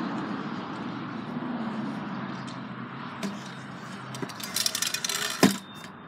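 Stunt scooter on skatepark concrete: a steady low rumble, then near the end a quick run of rattling clicks and one sharp clack of the scooter striking the ground.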